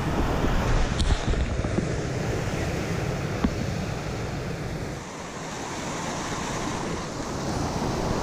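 Whitewater rapids rushing and crashing around a kayak, heard close up with water splashing over the microphone and wind buffeting it. A brief sharp hit comes about a second in.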